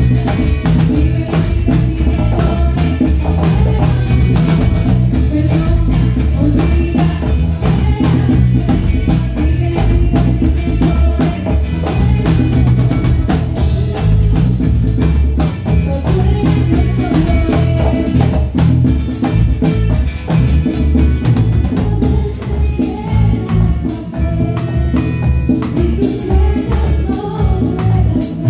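Live band playing a song through the PA: drum kit and congas keeping a steady beat under electric bass, guitar and melody.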